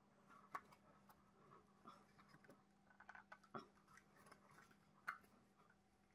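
Near silence: faint, irregular small taps and clicks over a faint steady low hum.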